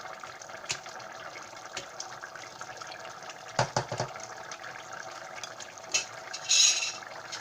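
Beef goulash sauce bubbling and simmering in a pot over a low flame, a steady crackle of small pops. A few knocks come about halfway through, and a short hiss is heard near the end.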